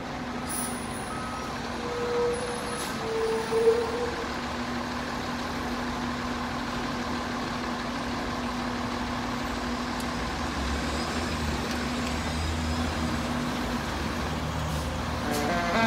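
Fire engine's diesel running steadily as the truck pulls out of the station bay, its low rumble growing as it moves. A few short high beeps sound in the first seconds, and right at the end its siren begins to rise.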